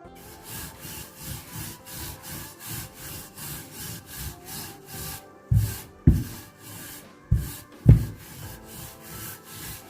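A rolling pin rolling out a ball of gata dough in even back-and-forth strokes, about two a second. In the second half come a few heavier thumps.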